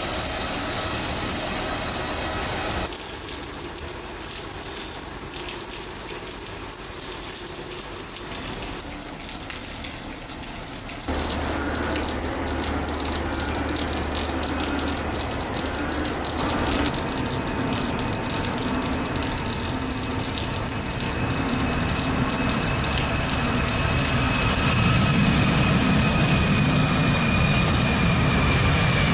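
Steady hiss of heavy rain, with an Airbus A320 airliner's jet engines running on a wet runway. Near the end the engine rumble grows louder, with a faint high whine that falls slightly in pitch.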